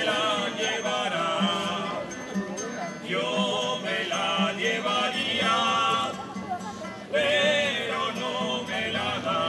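Folk choir of women's voices singing in unison with a wavering vibrato, in phrases with short breaks, accompanied by guitars and a frame drum keeping a low beat about once a second.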